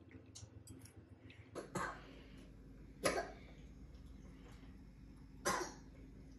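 Three loud crunches from tortilla chips being bitten and chewed, spaced a second or two apart.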